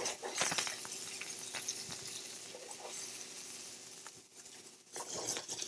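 Beef and vegetables with tomato paste sizzling in a hot cast iron skillet as the paste browns, with a metal utensil scraping and clicking against the pan as they are stirred.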